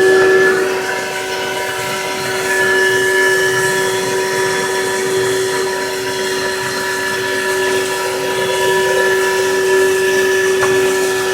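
CNC machine's spindle running with a steady high whine over a noisy hiss, its level wavering slightly.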